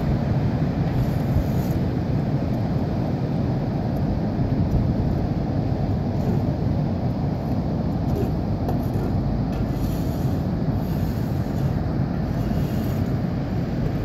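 Ocean waves breaking on the beach: a steady, low rushing noise with no distinct breaks.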